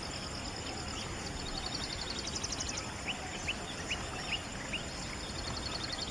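Outdoor birds and insects over a steady hiss: a fast, high trill comes and goes, and a bird gives five short rising chirps, evenly spaced, about halfway through.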